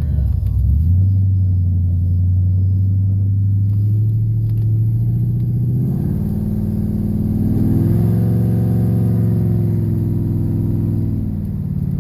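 Ford 4.6 V8 of an SN95 Mustang running on the road. Its note steps up about a second in, rises in pitch as the car accelerates from about six to eight seconds in, then eases back down near the end.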